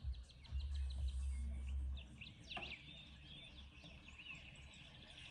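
Small birds chirping in the background, many short rising and falling calls. A low rumble fills the first two seconds, and there is a single sharp click about two and a half seconds in.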